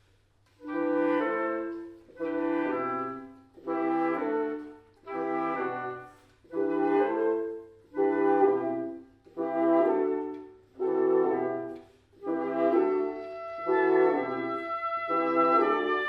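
Woodwinds and French horn playing classical chamber music. A short phrase of chords swells and fades about every second and a half over a falling low note, and a held high melody enters about twelve seconds in.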